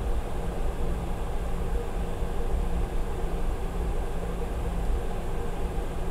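Cabin noise of a Boeing 717 taxiing: the steady hum of its rear-mounted Rolls-Royce BR715 engines at taxi power over an uneven low rumble.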